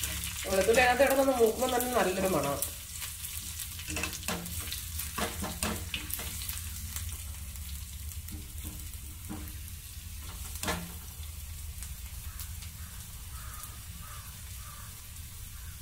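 Crushed garlic and curry leaves sizzling in hot oil in a small nonstick pan, with a slotted metal spatula stirring and clicking against the pan now and then. One sharper clack comes about eleven seconds in.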